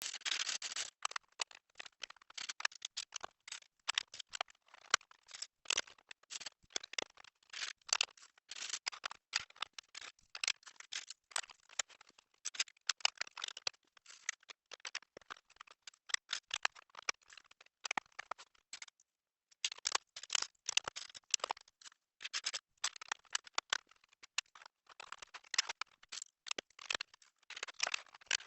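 Plastic Lego bricks clicking and rattling in quick, irregular succession as pieces are handled, sorted and pressed together, starting suddenly and pausing briefly about two-thirds of the way through.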